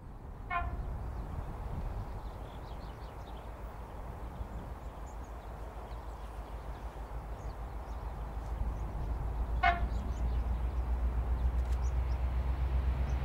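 Two Class 56 diesel locomotives working under power, their engine rumble growing steadily louder as they approach. Two short horn toots sound, one just after the start and one about ten seconds in.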